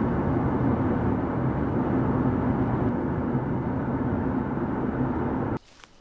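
Steady engine and road noise heard inside the cabin of a moving car, which cuts off suddenly near the end.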